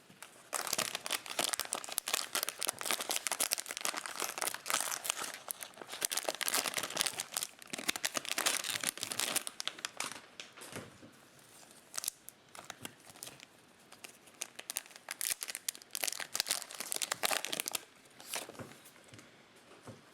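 Plastic cellophane wrapper of a Topps Chrome baseball card cello pack being torn open and crinkled by hand: dense crackling for about ten seconds, then scattered crinkles that die away.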